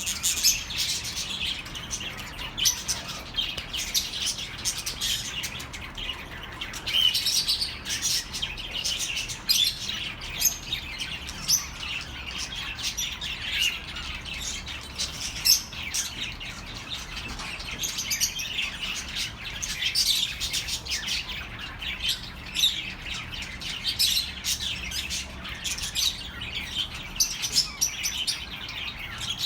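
A flock of budgerigars chattering, with many short, rapid chirps overlapping without a break.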